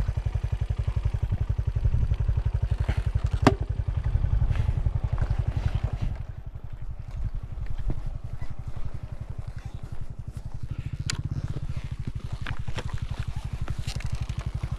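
Enduro motorcycle engine idling steadily, with a few sharp clicks over it, the clearest about three and a half seconds in and another near eleven seconds.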